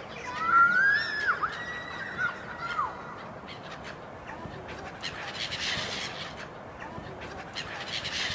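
A flock of gulls calling, with several short, arched calls close together in the first three seconds. After that the calls fade into a steady outdoor rush of noise.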